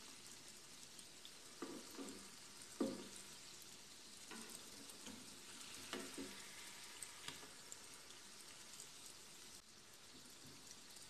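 Donuts deep-frying in oil in an aluminium kadhai on low heat: a faint, steady sizzle. A slotted spoon knocks against the pan a few times as the donuts are turned, the loudest clink about three seconds in.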